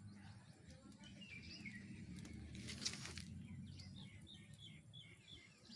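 Faint outdoor ambience: a small bird chirps a few times, then gives a run of short, falling chirps, about two a second, in the second half. Under it is a low rumble, and a brief crackle comes about three seconds in.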